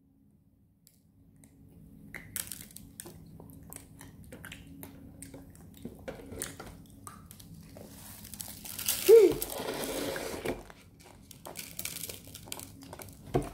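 Close handling noise: scattered small clicks and crinkly rustling, louder for a couple of seconds past the middle, with a brief voice-like squeak about nine seconds in.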